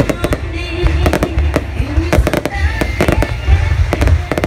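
Fireworks bursting in rapid succession: many sharp bangs several a second over a deep rumble, with music playing underneath.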